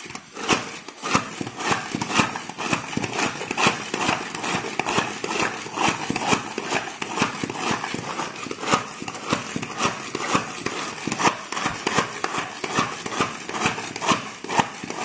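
Manual pump-action plastic food chopper pressed down over and over, a quick steady run of plastic clacks, about two to three a second, as its spinning blades chop onions in the bowl.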